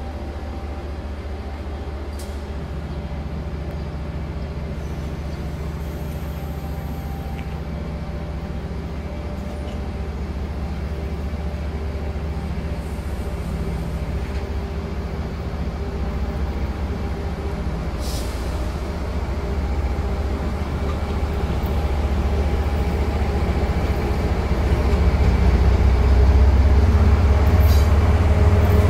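Diesel locomotive engine running with a steady low drone, growing gradually louder and strongest over the last few seconds.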